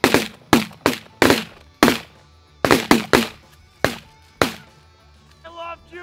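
A volley of about ten shotgun shots in quick, uneven succession, fired at geese coming into decoys. Canada geese honk near the end.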